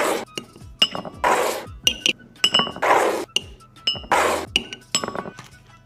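Glass spice jars clinking as they are set down, and a metal spoon tapping against the jar rims and a ceramic bowl, in sharp ringing clinks, with several short rushing swishes about a second or so apart. Background music with a steady beat runs underneath.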